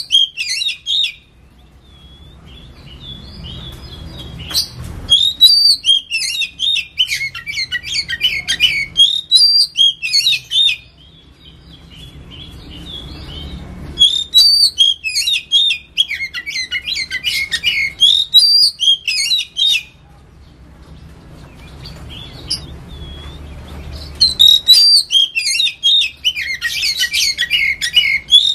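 Oriental magpie-robin singing in bouts of several seconds of rapid, varied whistled and chattering phrases, with pauses of a few seconds between bouts.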